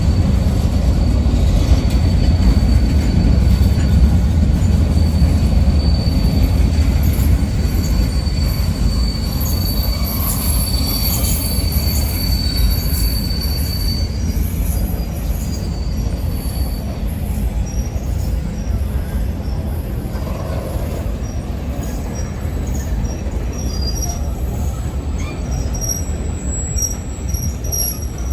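Freight train cars rolling slowly past with a heavy low rumble. A steady high-pitched wheel squeal runs through the first half and fades out about halfway, and short high squeaks come near the end.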